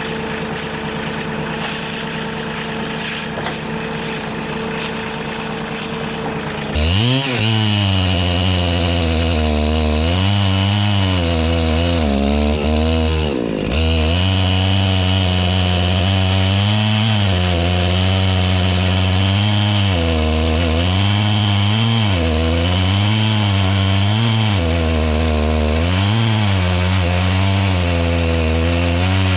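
Large Husqvarna chainsaw running steadily at first, then about seven seconds in it gets much louder as it cuts into a big log. Its engine note sags and picks up again over and over as the chain loads in the wood, with a brief dip about halfway through.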